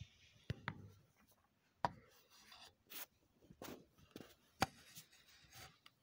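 Handling noise of a phone held close to its microphone: irregular sharp clicks and short rubbing rustles as it is gripped and moved.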